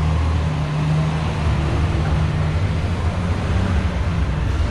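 Garbage truck's engine running with a low, steady drone over city street noise.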